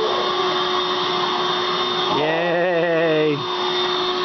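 Vacuum cleaner running with a steady motor whine and rushing air.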